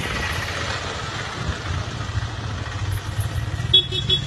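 Auto rickshaw engine running steadily with a low hum. A short burst of high-pitched beeps comes near the end.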